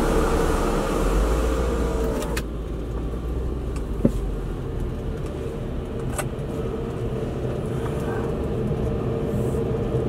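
Lexus SC430 cabin noise while driving: steady engine and road hum with a hiss of wind. An electric motor whines, falling in pitch, and stops with a clunk about two and a half seconds in, and the wind hiss cuts off at that moment; a single click follows about four seconds in.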